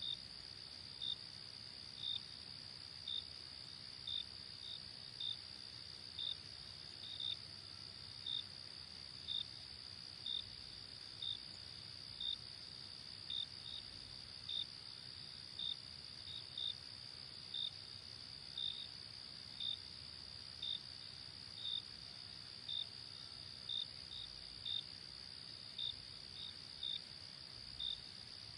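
Crickets chirping: a steady high trill with a sharper chirp about once a second, sometimes two close together.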